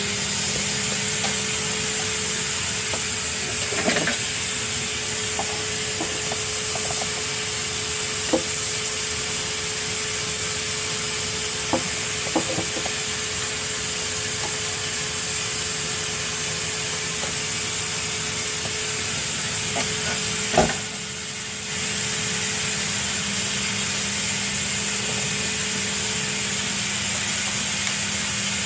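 Vacuum cleaner motor spinning up, then running steadily with a high whine, with scattered sharp clicks and rattles of dry cereal being sucked up; the motor winds down at the end.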